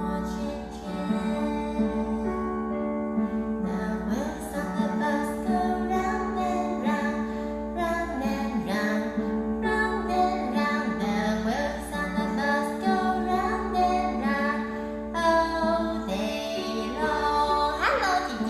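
A woman singing a slow lullaby over sustained instrumental accompaniment with guitar.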